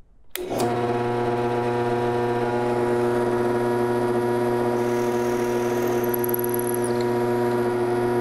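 Delta drill press switched on with a click, its motor then running with a steady hum. Between about five and seven seconds in, a faint higher whine joins it as the bit is fed down into a block of wood.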